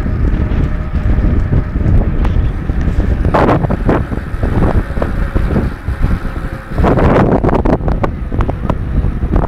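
Wind buffeting the microphone of a camera on a moving bicycle, a dense low rumble with two louder rushes about three and a half and seven seconds in.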